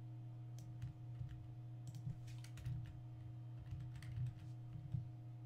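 Computer keyboard keystrokes in irregular clusters as code is typed and edited, over a steady low electrical hum.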